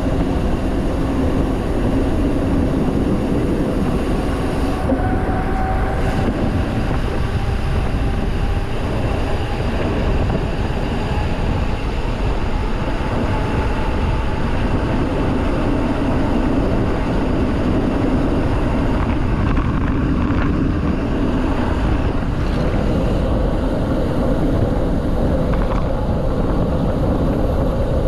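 Continuous rumbling noise of a mountain bike being ridden: tyre rumble and wind on the microphone.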